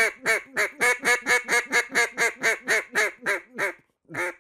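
Duck Commander Camo Max, an ABS plastic duck call, blown in a fast run of raspy quacks, each dropping in pitch. The run slows and fades after about three seconds, and a single quack follows near the end.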